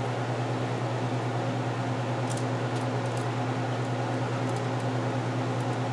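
Steady low mechanical hum, like a running fan or appliance motor, unchanging throughout, with a few faint light ticks about two to three seconds in and again near the end.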